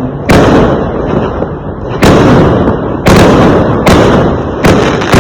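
Fireworks going off: five loud bangs about a second apart, the first just after the start. Each bang trails off in a rolling rumble.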